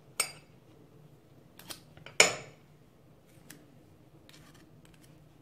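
Metal spoons clinking against a small cut-glass bowl a few times, the sharpest strike about two seconds in with a short ring after it.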